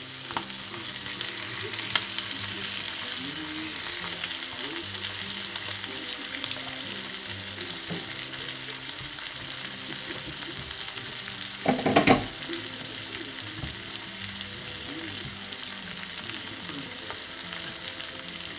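Chicken thighs searing skin side down in a hot cast-iron skillet of clarified butter and olive oil: a steady sizzle and hiss of frying fat, with a brief loud clatter about twelve seconds in.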